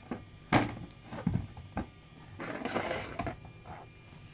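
Several short knocks and clicks as small glass nail polish bottles are handled and set down on a plastic tabletop, with a brief rustle a little past the middle.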